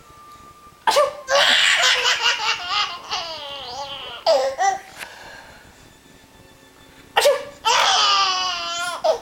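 A baby laughs hard in two long bouts. Each bout follows a sudden short sneeze, about a second in and again about seven seconds in.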